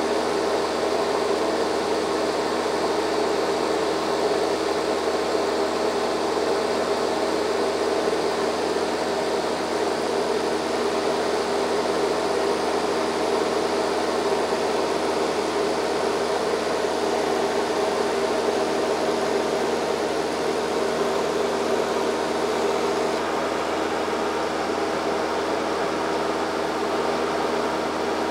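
Steady cabin drone of a high-wing light aircraft in cruising flight: engine and propeller holding one even pitch under a constant hiss of airflow, heard from inside the cabin.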